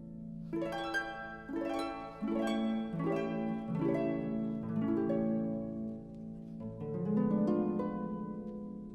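Music rather than fireworks: a slow melody of plucked, ringing string notes, each sounding for a while as the next one begins.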